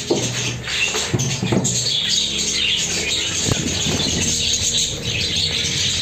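A colony of budgerigars chattering and squawking continuously. A few low knocks and rustles come through within the first four seconds, with the loudest sharp knock about three and a half seconds in.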